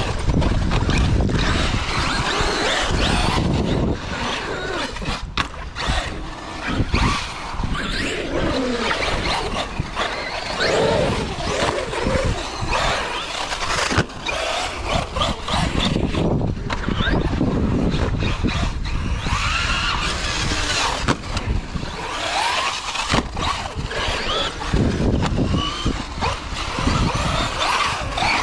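Traxxas Sledge RC truck's brushless motor whining up and down with the throttle as it is driven hard, with repeated knocks from jumps and landings.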